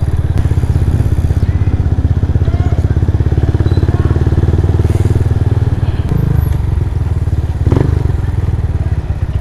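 Motorcycle engine running steadily with an even, rapid putter, heard from the rider's seat, with one brief knock near the end.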